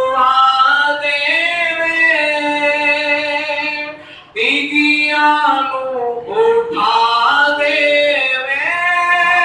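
A man singing a Punjabi naat unaccompanied, in long held notes that slide up and down, with a short break for breath about four seconds in.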